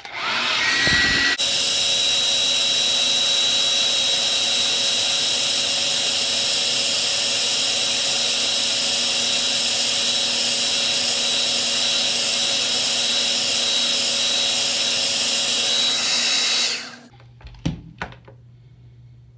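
Handheld hair dryer running on its highest heat setting: a steady rush of air with a thin whine, coming up to speed in the first second or so and switched off about seventeen seconds in. A couple of light knocks follow as it is set down.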